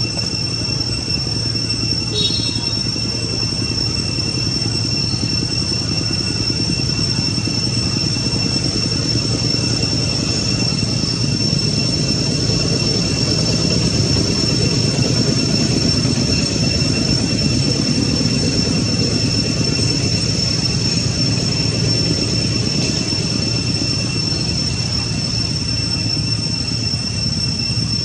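Steady high-pitched drone of forest insects, two unbroken tones over a constant low rumble, with a brief chirp about two seconds in.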